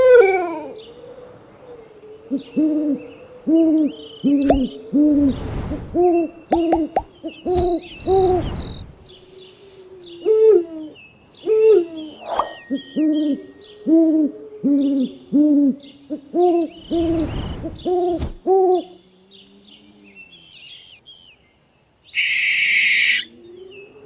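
An owl hooting in long runs of short, evenly spaced hoots, about two a second, with a wavering drawn-out call beneath them; the hooting stops a few seconds before the end, and a brief burst of hiss follows.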